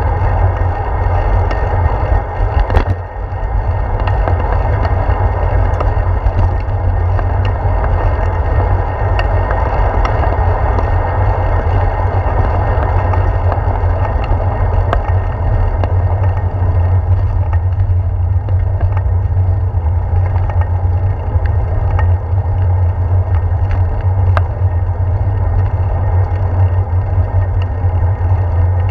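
Steady low wind rumble and tyre-on-pavement road noise picked up by a handlebar-mounted GoPro on a moving bicycle, with scattered small clicks and rattles from bumps in the path.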